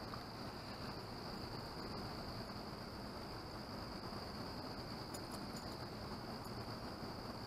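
Crickets trilling steadily in one high, unbroken note.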